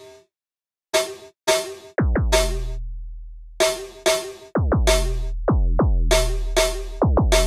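Synthesized electronic drum kit playing a pattern after about a second of silence. The snare is a sample played through Reason's Grain sample manipulator: short crisp hits with a ringing pitched tone. The kicks drop fast in pitch into a long booming bass tail.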